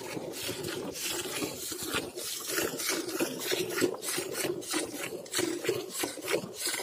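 Hand-milking a cow into a steel bucket: jets of milk squirt into the bucket with a rhythmic hissing spray, one burst for each squeeze of a teat, several a second, into milk already partly filling the pail.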